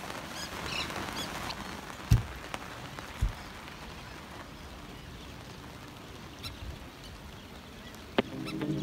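Steady hiss of rain at an anchorage, with faint high chirps in the first second or so and two dull thumps about 2 and 3 seconds in. Music comes in near the end.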